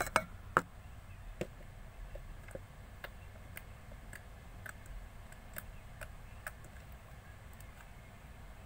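Slime being squished and poked by hand, giving small, irregular clicks and pops. Two louder pops come in the first second, then fainter clicks about every half second.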